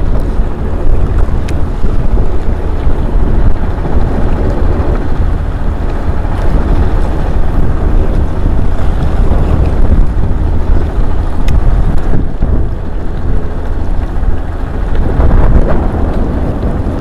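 Strong wind buffeting the action camera's microphone: a loud, steady, gusty rumble with no let-up.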